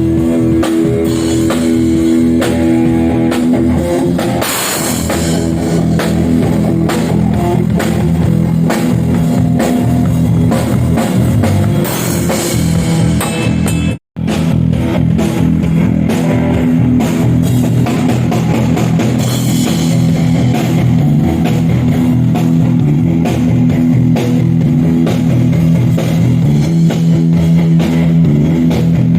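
Live rock band playing at full volume: guitar, bass guitar and drum kit together. The sound cuts out for a split second about halfway through.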